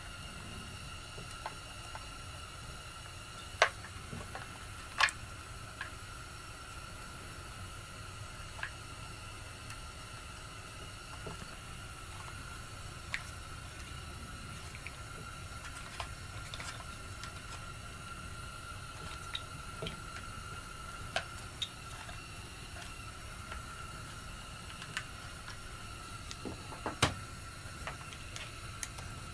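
Scattered light clicks and taps of small parts and tools being handled while a carburetor is fitted to a chainsaw, over a steady hiss with a faint high whine. A few sharper knocks stand out, the loudest three or four seconds in, about five seconds in and near the end.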